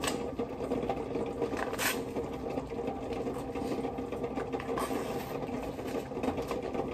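A steady low machine hum throughout, with a few short crinkles, about two and five seconds in, of a butter stick's paper wrapper being peeled off by hand.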